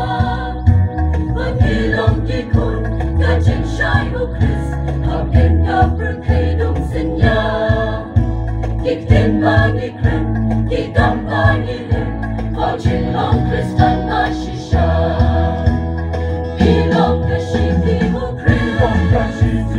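A mixed choir of women's and men's voices singing together, picked up by stage microphones and played through loudspeakers.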